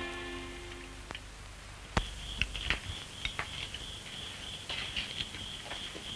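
The last violin note fades out in the first second. After a sharp click about two seconds in, a faint steady high whine from the 1930s film soundtrack runs under scattered light clicks and taps.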